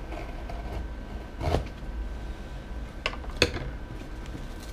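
A cardboard box being cut and its flaps pried open by hand: a scrape about a second and a half in, then two sharper cracks of the card about three seconds in, over a steady low room hum.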